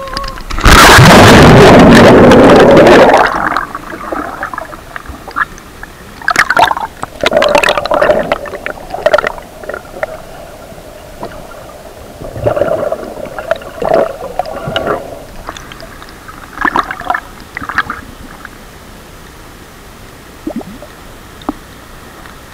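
Action camera plunging into a river pool: a loud splash and rush of water about a second in, then muffled underwater bubbling and gurgling with sharp clicks as the swimmer dives along the bottom, dying away near the end.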